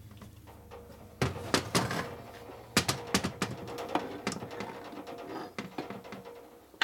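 Irregular metallic clunks and clinks: an aluminium motorcycle crankcase assembly is shifted and turned over on a steel workbench, and a steel bar knocks against it. The loudest knocks come about one and a half seconds in and again about three seconds in.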